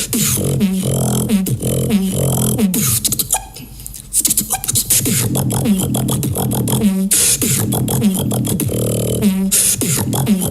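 Beatboxing: a fast rhythm of mouth-made drum hits and clicks over a low hummed bass line, dropping away briefly about three and a half seconds in.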